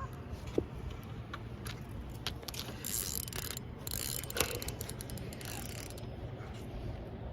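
Fishing reel clicking and ratcheting while a hooked carp is being fought, with two louder rasping runs about three and four seconds in.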